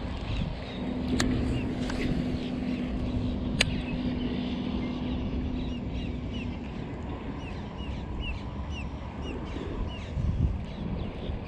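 Wind noise on the microphone, with a small bird chirping over and over in short high notes and a low steady hum through the first half. Two sharp clicks, about a second in and again past three seconds.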